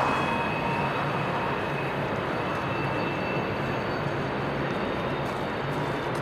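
Steady rushing of a fast whitewater river, with the low, even hum of diesel freight locomotives running slowly across a railway bridge.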